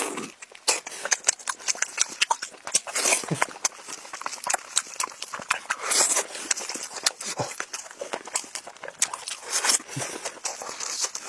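Close-miked chewing and smacking of pork knuckle skin: a dense, irregular run of mouth clicks and smacks.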